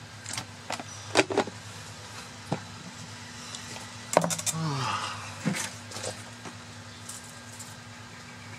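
A few sharp knocks of knives and a fish being set down on a wooden cleaning board, over a steady low hum. About four seconds in, a louder sound falls in pitch for under a second.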